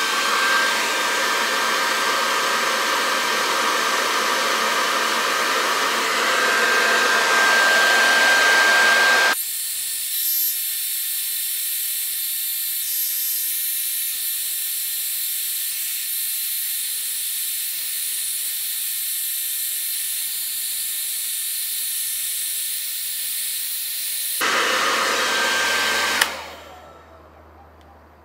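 Hand-held hair dryer blowing on a clay pot on the spinning potter's wheel, a steady rushing noise with a faint whine. About nine seconds in it abruptly turns into a thinner, higher hiss, goes full again near the end and then switches off.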